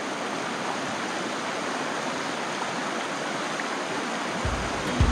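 River water rushing steadily. About four seconds in, music with deep bass beats comes in over it.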